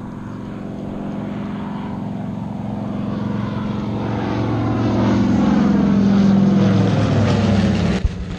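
Propeller-driven World War II bomber passing low overhead, its piston engines droning louder as it approaches. The sound cuts off abruptly near the end.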